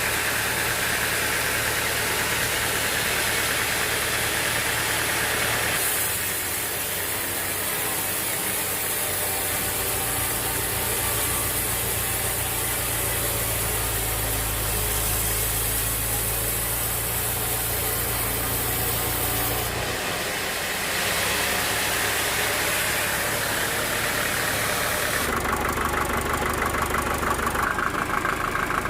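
Sawmill machinery running: a steady engine-driven mechanical noise that changes abruptly in character several times.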